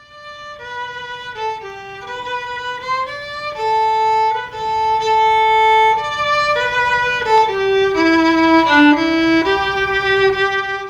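Violin music: a slow melody of held notes stepping up and down, growing louder a few seconds in.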